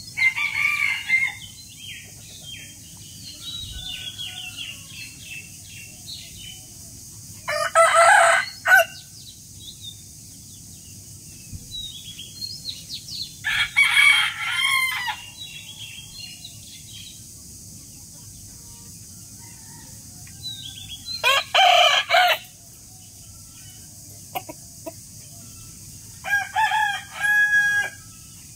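Rooster crowing: five loud cock-a-doodle-doo calls spaced about six seconds apart, with fainter bird chirps between them.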